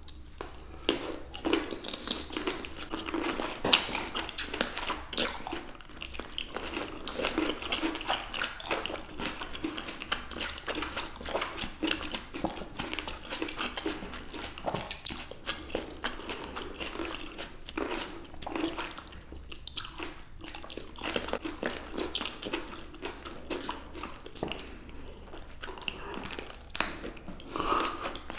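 Close-miked biting and chewing of fresh baby green grapes pulled off the bunch by mouth. Two eaters make juicy pops, crunches and wet squishes in a dense, irregular stream of small clicks.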